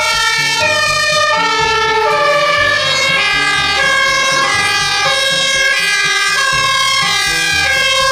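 Toy fire truck's electronic siren sounding steadily, a run of stepped pitched tones that change several times a second.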